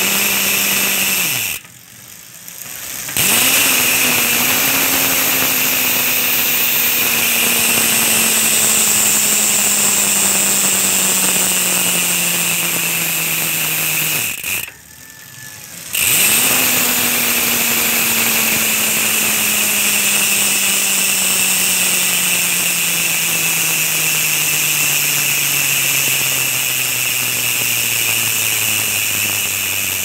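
Cole carbon rear hub's freehub ratchet buzzing loudly as the mountain bike's rear wheel freewheels, its pitch slowly falling as the wheel slows. It cuts out twice, about two seconds in and again about fifteen seconds in, then comes back at a higher pitch each time.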